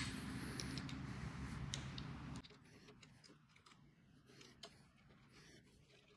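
Faint small clicks and light metal taps as lathe tailstock parts are handled and fitted by hand, over a low steady hum that cuts off abruptly about two and a half seconds in.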